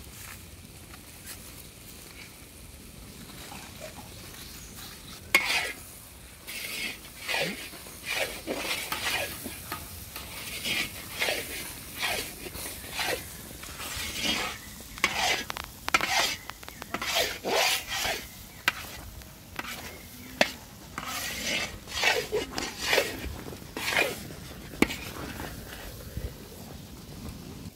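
Long metal spatula scraping and stirring thick masala in a large iron kadai, in repeated strokes about one or two a second that start about five seconds in, over a steady sizzle of the frying paste.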